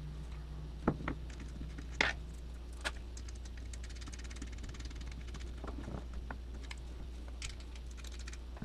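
Small clicks and knocks of a plastic spring clamp, a stainless steel bolt and a GoPro mount being handled and fitted together: a few sharper knocks in the first three seconds, then softer fiddling ticks, over a steady low hum.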